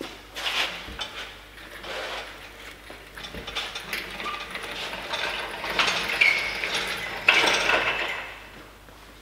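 Mechanical clicking and metal clatter from hand tools at work, in irregular bursts that are loudest in the second half.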